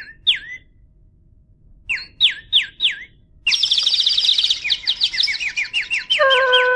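Bird chirps opening a song's music track: single falling whistled calls, then a group of three, then rapid, dense chirping from about halfway. A held flute-like tone comes in near the end.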